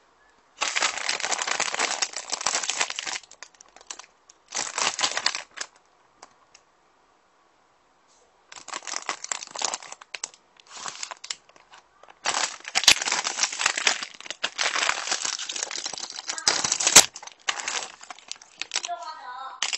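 Plastic snack wrapper crinkling and tearing in several handling bouts, with short quiet pauses between them.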